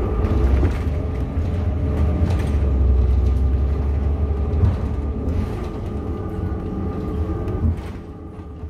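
Inside a moving city bus: the engine rumbles with a steady whine while the bus rolls slowly along the street, with an occasional knock from the body. The sound fades away near the end.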